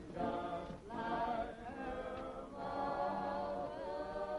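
A choir singing long held notes in a few short phrases, the last phrase held longer.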